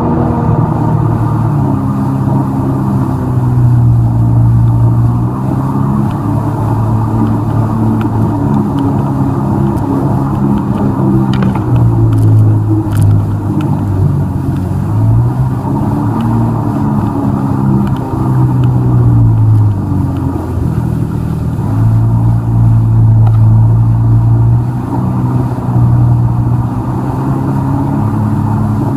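Jet ski engine running under way, its pitch rising and falling several times as the throttle is opened and eased, with two short clicks about halfway through.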